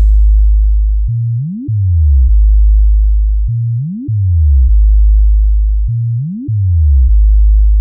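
Low-frequency sound-check test: a loud, very deep synthesized sub-bass tone held steady. About every two and a half seconds, three times, it breaks into a quick rising bass sweep that steps back down into the deep hold.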